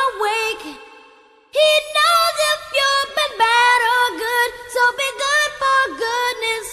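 High-pitched, synthetic-sounding singing voice with musical backing, in short gliding phrases, with a pause of about a second shortly after the start.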